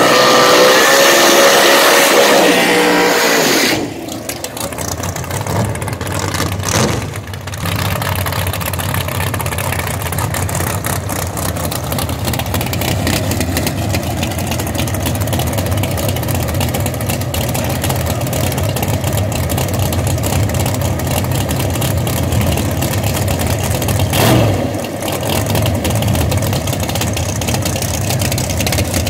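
Top Sportsman drag car's engine idling with a steady low lumpy note as it creeps forward. For the first few seconds a louder engine runs at high revs, its pitch rising then falling, and it stops about four seconds in. There is one short rev late on.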